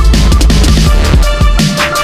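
Electronic background music with a driving beat and heavy bass.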